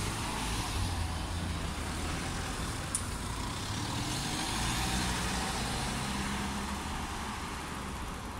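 Car engine running close by, its pitch shifting slowly, over steady road noise; a short tick about three seconds in.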